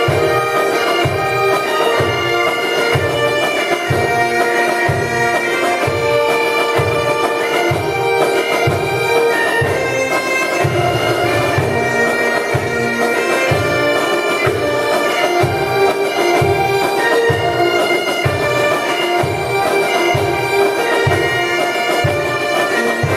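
Bagpipe playing a melody over its steady drone, with a low beat pulsing under it about one and a half times a second.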